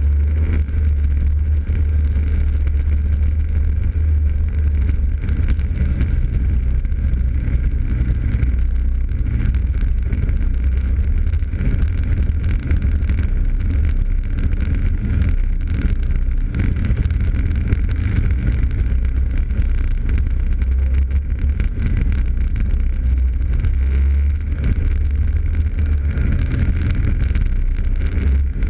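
Rotax Max Junior 125cc two-stroke kart engine running hard at race speed, heard from onboard with wind on the microphone, its note shifting slightly through the corners, with other karts' engines close by.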